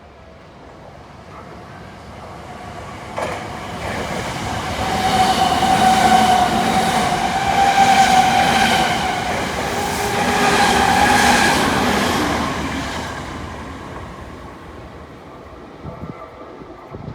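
Electric commuter train on the Tokyu Toyoko Line passing over a level crossing. It builds up over a few seconds, runs loudest for several seconds with wheel clatter, and fades away. A single sharp click comes shortly before it arrives.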